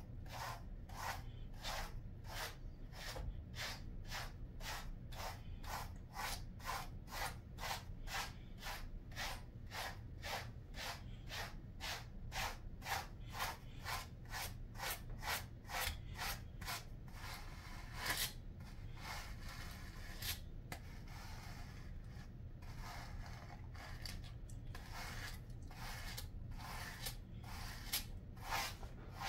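A grooming brush raked through a Jindo dog's coat in quick, even strokes, about two a second. In the second half the strokes slow down and come irregularly.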